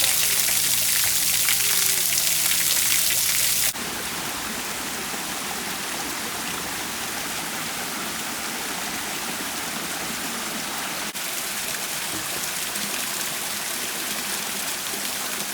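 Waterfall water rushing and splashing in a steady hiss; it is louder and brighter for the first few seconds, then cuts abruptly to a quieter, steadier rush of falling water, with another brief break about eleven seconds in.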